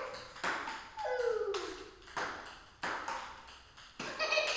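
Ping-pong ball struck with paddles and bouncing on the table: a string of sharp clicks, roughly one a second, each with a brief ring.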